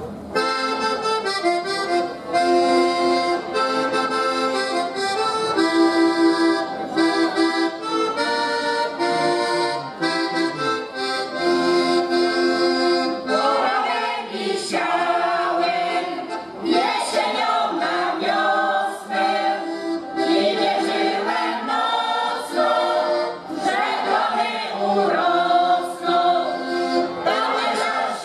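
Accordion playing a Polish folk tune in steady chords. About halfway through, a women's folk choir starts singing along with it.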